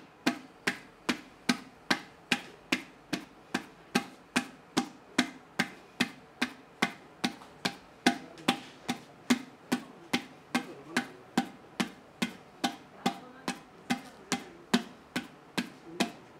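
Wooden paddle beating the outer wall of a coil-built onggi jar against a hand-held anvil inside, a steady run of dull slaps about three a second, compacting and thinning the clay.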